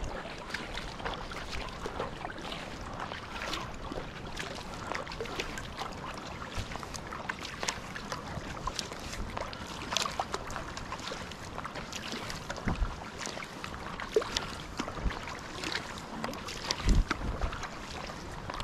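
Double-bladed kayak paddle stroking through calm water on a Rockpool Taran 18 sea kayak: blades dipping in and pulling out with light splashes and dripping water, many small drips and ticks over a steady wash of water along the hull. A few low thumps come in the second half.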